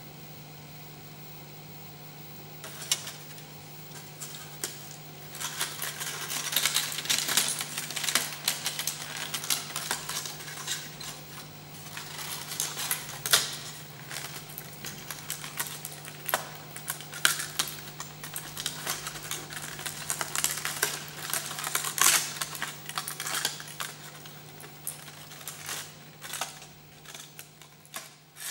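Aluminium foil crinkling and crackling as hands squeeze and shape a crumpled foil figure. The crackling starts a few seconds in and thins out near the end, over a steady low hum.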